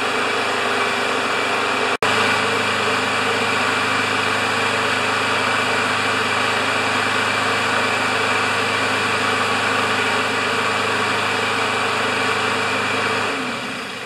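Honda engine on a LawnBoy push mower running steadily. Near the end it is shut off and winds down to a stop.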